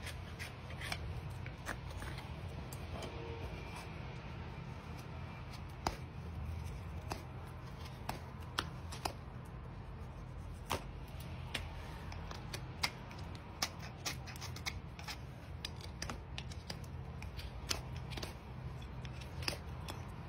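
Hoof knife paring a horse's sole and frog: irregular sharp clicks and scrapes as the blade cuts through the horn, over a steady low hum.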